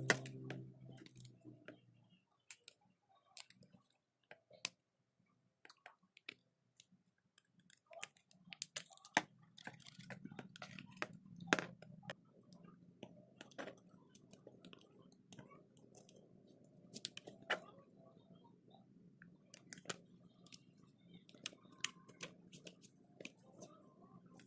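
Irregular small clicks, taps and light scrapes of hand tools and parts being handled during phone repair work. A faint low hum comes in about eight seconds in.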